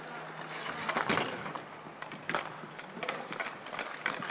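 Inline hockey play: skate wheels rolling on the rink surface and hockey sticks clacking against the puck and each other. There are a few sharp clacks, the loudest about a second in.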